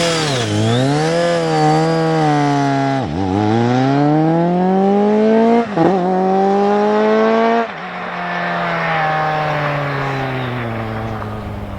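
2006 BMW K1200GT's inline-four engine through a Delkevic aftermarket exhaust, accelerating hard and shifting up through the gears: the pitch climbs and drops back four times, about every two and a half seconds. Near eight seconds in the throttle eases off, and the note sinks slowly and fades.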